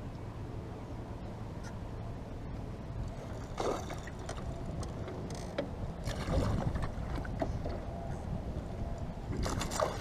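Steady low rumble of a small boat on the water, with a few brief faint knocks and rustles, one about four seconds in, a cluster around six to seven seconds and more just before the end.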